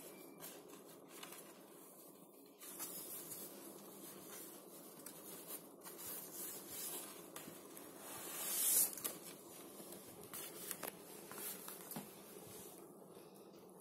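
Cardstock panels and paper flaps of a handmade gift box rustling and clicking as they are unfolded and handled, with a louder rubbing swell that rises and stops suddenly about two-thirds of the way through.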